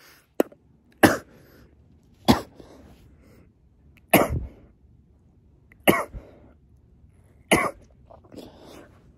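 A man coughing hard five times, roughly one cough every second and a half, with breathing between: a coughing fit from a strong hit on a cannabis vape pod, which he calls really strong.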